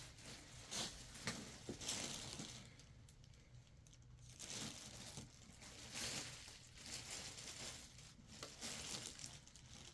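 Packaging being handled and opened: faint rustling and crinkling in several short, separate bursts, over a low steady room hum.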